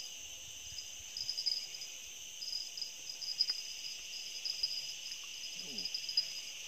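Steady high-pitched insect chorus buzzing from riverside vegetation, with an uneven pulsing trill on top of it.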